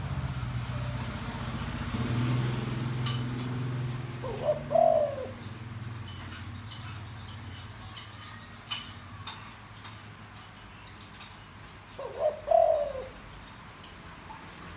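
Spotted dove cooing: two deep coo phrases, one about a third of the way in and another near the end. The call is the kind keepers play to get newly caught wild doves to start cooing.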